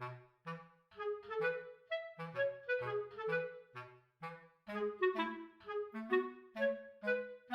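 Background music: a light, bouncy tune of short, separate notes over a bass line, several notes a second.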